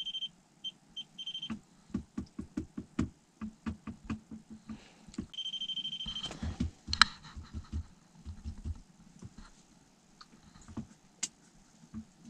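Electric wakasagi reel's fish alarm beeping to signal a bite: a steady high beep that breaks into a few short beeps in the first second and a half, then another steady beep about five seconds in. Between and after the beeps come rapid soft knocks and clicks, with one sharp click about seven seconds in.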